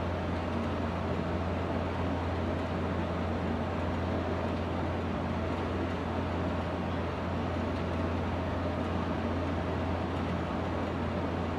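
Steady low hum and even whoosh of running cooling fans.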